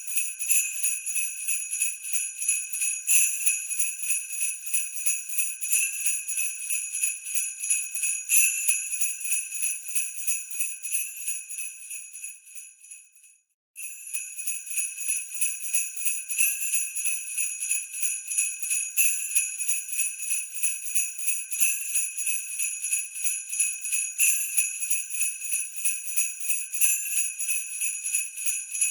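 Sleigh bells jingling in a quick, steady shaking rhythm. About halfway through, the jingling fades out to a moment of silence, then starts again at full level.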